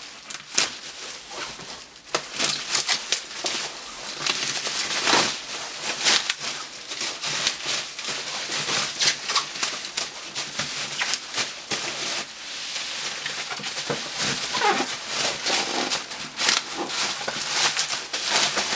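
Bubble wrap and plastic packaging being handled and pulled off, a dense run of crinkling and crackling with sharp little clicks.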